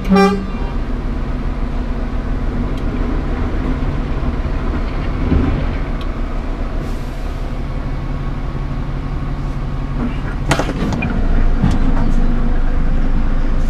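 Scania R410 truck's six-cylinder diesel engine running steadily. A short horn toot sounds at the very start, and a sharp knock comes about ten seconds in.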